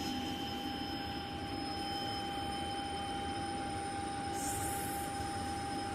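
Steady mechanical hum of aircraft cockpit equipment, with several constant whining tones over it and a short hiss about four and a half seconds in.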